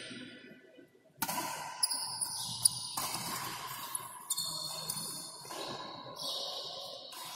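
Badminton rally: sharp racket strikes on the shuttlecock and high squeaks of shoes on the court mat, starting about a second in.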